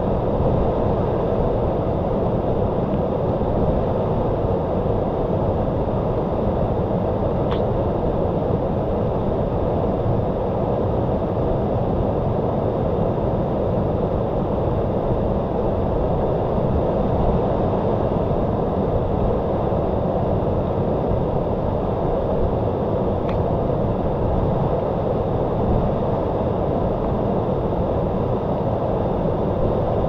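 Waterfall: water falling in a steady, unbroken rush, heavy in the low end. Two faint brief high chirps stand out twice over it, about fifteen seconds apart.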